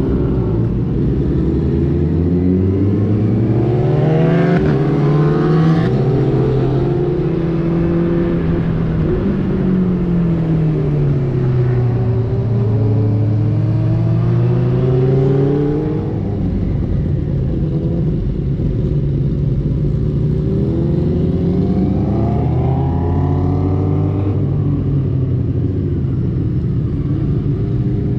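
Benelli TNT600i's inline-four engine under way, revving up through a couple of gear changes, easing off, then pulling up again. In the second half it holds a steadier speed with gentler rises and falls.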